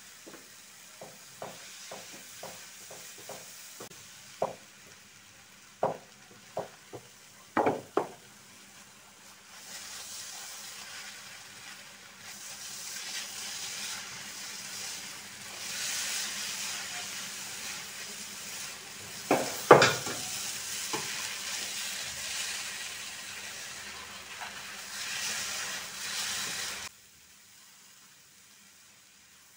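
Silicone spatula knocking and scraping against a non-stick pan while stirring vermicelli with grated coconut, a run of taps in the first eight seconds. From about ten seconds the vermicelli sizzles with a building hiss as its moisture cooks off, with a few loud knocks of the spatula around twenty seconds; the sound cuts off suddenly near the end.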